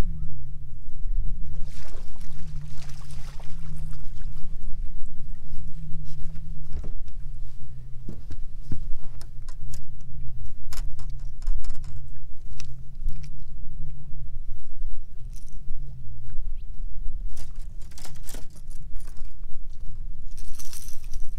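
A steady low hum throughout, with scattered clicks and splashes as a small striped bass is played on a rod and reel and landed; the strongest splash comes near the end, as the fish is lifted from the water.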